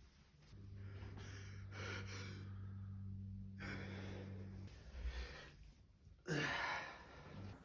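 A person's quiet gasping breaths, the build-up of a sneeze, ending in a short louder breathy burst about six and a half seconds in.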